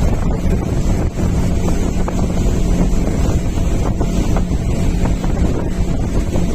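Speedboat's outboard motor running steadily at speed, with heavy wind noise on the microphone and water rushing against the hull.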